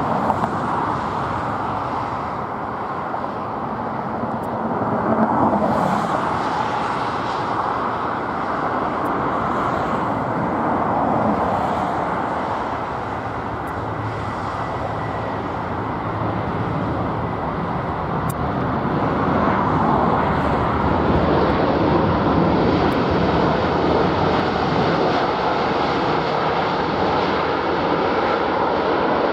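Jet airliner's engines during a landing, a loud, steady rushing noise that swells a few seconds in and grows louder again in the second half.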